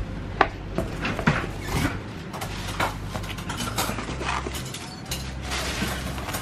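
Plastic bags crinkling and foam takeout containers knocking lightly as they are unpacked from a cardboard box, in a string of short clicks and rustles.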